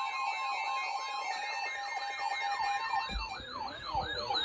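Electronic siren-style alert tones, a pitch sweeping up and down about twice a second over steady tones with a faster warble above. They get louder near the end, and they open a severe thunderstorm warning.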